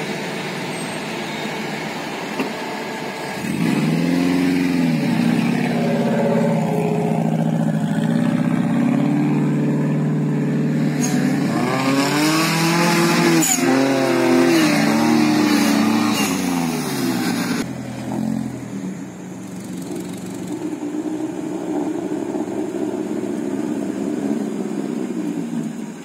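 Suzuki Jimny off-roader's engine revving hard in low gear through deep mud, the revs rising and falling several times, loudest through the middle and easing off after about eighteen seconds.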